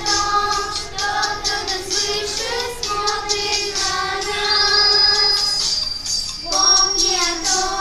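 Children singing a song with musical accompaniment, in sustained sung notes with a short break about six seconds in.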